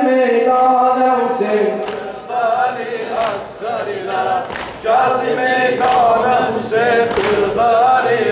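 A man singing a mersiyye, a Shia mourning elegy for Imam Hussein, unaccompanied, in long held notes with wavering ornaments. The singing drops a little in loudness between about two and five seconds in, then swells again.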